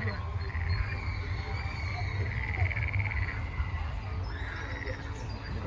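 Frogs trilling in several drawn-out, pulsing trills, with short higher chirps near the end, over a low steady rumble.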